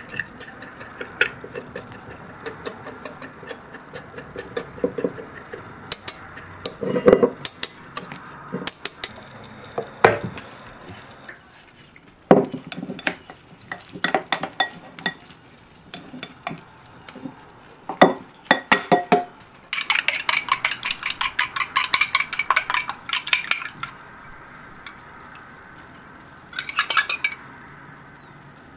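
Utensils clinking and scraping against mixing bowls as ingredients are stirred: first a utensil working dry almond flour in a stainless steel bowl, then stirring in a glass bowl. About two-thirds through comes a fast run of clinking strokes, with a shorter one near the end.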